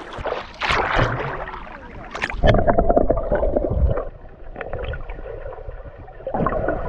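Lake water sloshing and splashing around a camera at the surface, then turning muffled, with gurgling, as the camera goes under about two and a half seconds in.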